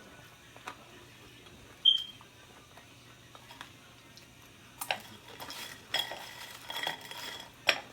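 Metal utensil clinking against a cooking pot: one sharp ringing clink about two seconds in, then a run of clattering, ringing clinks through the last three seconds.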